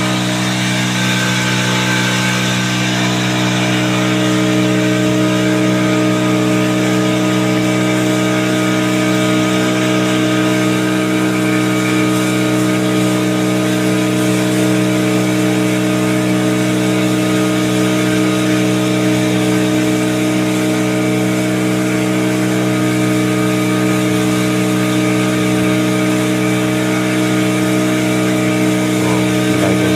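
Engine of a small tambang river ferry boat running at a steady speed, heard from aboard, an even drone that holds the same pitch and loudness throughout.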